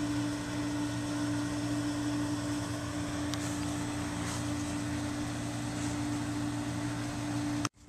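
Steady machine hum holding one pitch, which cuts off abruptly near the end.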